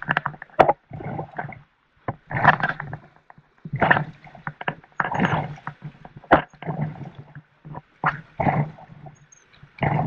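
River water splashing and rushing around a whitewater raft in repeated surges, about one every second or so, with two sharp knocks.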